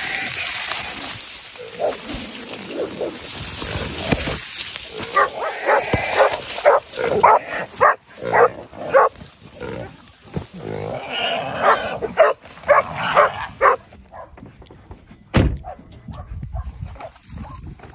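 Dry cane stalks crackling and rustling as someone pushes through them. Then a caught feral hog squeals in rapid repeated cries for several seconds. The cries stop suddenly near the end.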